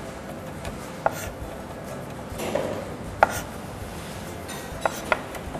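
Chef's knife chopping fresh herbs on a plastic cutting board: a few separate, sharp knife taps on the board, spaced a second or two apart.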